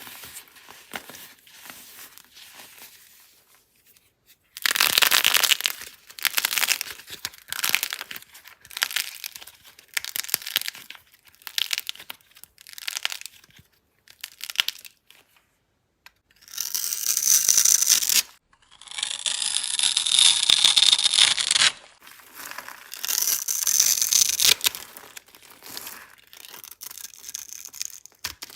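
Dry soap being cut, crushed and scraped, giving irregular bursts of crumbly crunching and crackling with short pauses between them.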